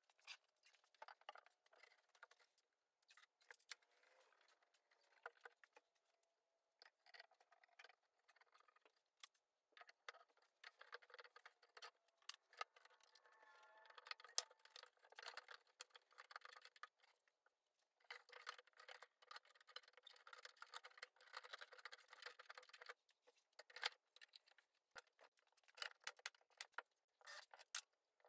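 Faint workshop handling noise: scattered clicks, knocks and scraping as a curved kerf-cut MDF panel is handled and bar clamps are set on it, busier through the middle stretch.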